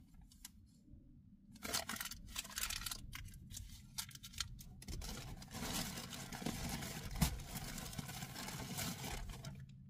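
A mailing package being handled and torn open, rustling and crinkling in irregular bursts.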